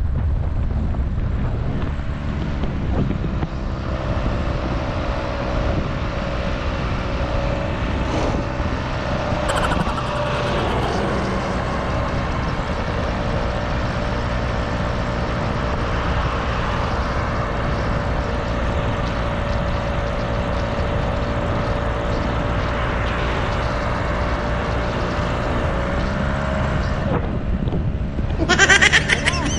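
Motorcycle engine running steadily at cruising speed, with wind noise over the microphone. The engine's pitch shifts briefly near the end.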